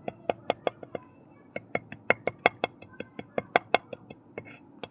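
Mud being crushed by hand: a rapid run of sharp, crisp cracks, about six a second, with a short pause about a second in.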